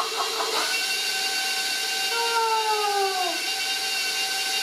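6-quart KitchenAid stand mixer running steadily with a motor whine as it beats eggs into cookie dough. A short falling tone sits over it about two seconds in.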